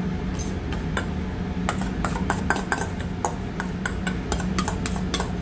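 A metal spoon scraping and clinking against a stainless steel mixing bowl as thick chickpea spread is scraped out into a small ceramic bowl: many quick, irregular clinks, coming thicker from about two seconds in.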